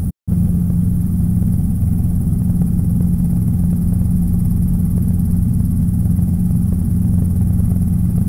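Robinson R22 helicopter's engine and rotor drone, heard inside the cockpit: a loud, steady low hum with a constant pitch while the helicopter moves low over the airfield. The sound cuts out for a split second just after the start.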